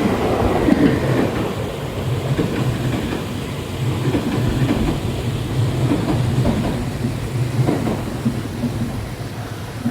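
Kintetsu electric train passing and moving away, its rumble and rail-joint clatter fading.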